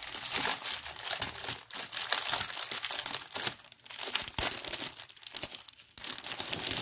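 Plastic packaging of a diamond painting kit crinkling and crackling as it is handled and opened, on and off with brief pauses.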